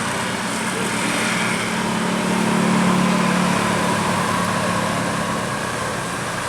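Bus engine running with road noise, its hum swelling to a peak about halfway through and easing off as it passes.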